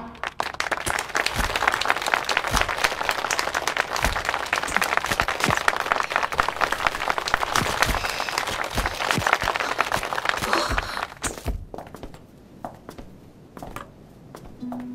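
A roomful of people applauding, many hands clapping fast and dense, which dies away about eleven seconds in.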